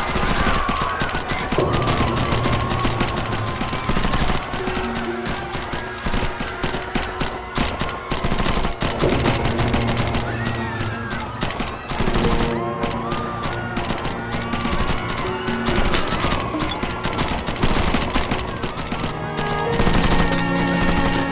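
Rapid automatic gunfire in long, dense volleys as a nightclub is sprayed with bullets, over a dramatic music score.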